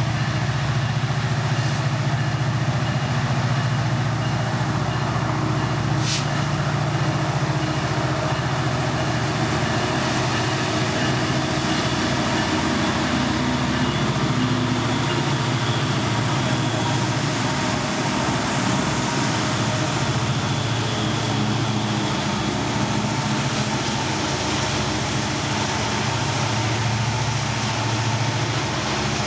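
Train running past with a steady, continuous low rumble and a brief sharp high click about six seconds in.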